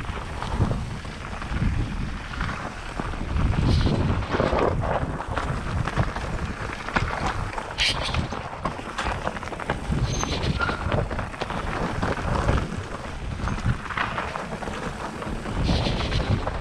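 Mountain bike riding fast over a rough dirt trail: wind rushing on the microphone, tyres rolling over dirt and stones, and frequent irregular rattles and knocks from the bike over the bumps.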